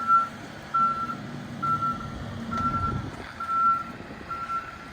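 A vehicle's reversing alarm beeping steadily, a single high tone about once a second. A low engine hum runs underneath for the first few seconds.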